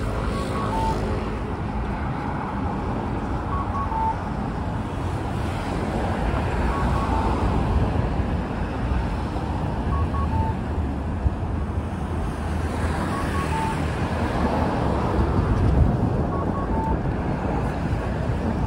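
Busy city street noise with a steady rumble of traffic. Through it a small electronic signal repeats about every three seconds: two short beeps, then a slightly lower, longer one.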